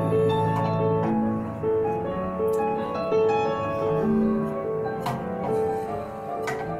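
Recorded piano playing a melody over held chords, the song's backing track, with the drum kit silent. Two faint clicks come in the second half.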